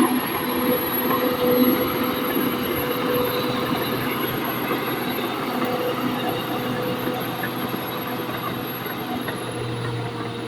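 Bulldozer running, a steady engine drone with metallic squealing and clatter from its steel tracks; a pulsing low note fades out in the first couple of seconds.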